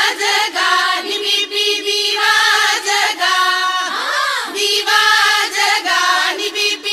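Background music: a sung melody over a steady held drone note.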